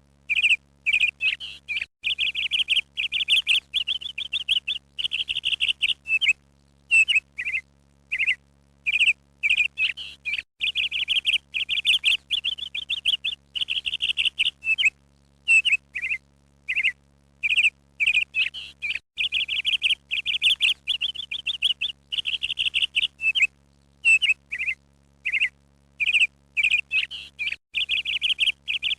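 A small bird chirping and trilling over and over in quick high phrases, with short pauses between them, over a faint steady low hum.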